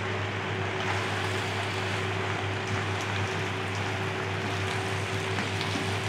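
Steady kitchen noise: an even hiss over a low hum and a faint steady tone, with light scraping as a wooden spatula stirs macaroni in a nonstick frying pan on the stove.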